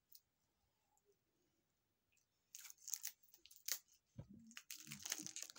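Near silence, then about halfway in a run of crackly rustling and crinkling from paper being handled, with a couple of soft knocks, growing busier near the end.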